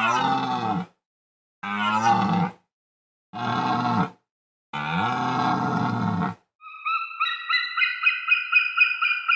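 An animal giving four low, pitched calls, each a second or two long, with silent gaps between them. Then, from about seven seconds in, a different call starts: a fast, even run of high repeated notes, about five a second.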